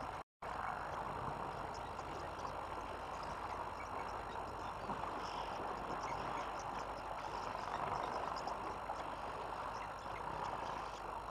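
Steady outdoor background hiss picked up by a bush webcam's microphone, with faint scattered ticks, cutting out completely for a moment just after the start.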